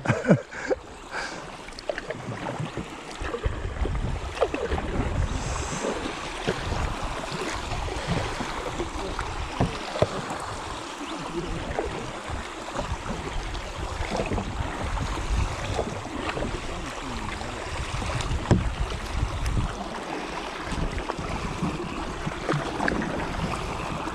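Kayak paddles dipping and pulling through calm river water, with steady splashing and dripping, over a low, uneven rumble.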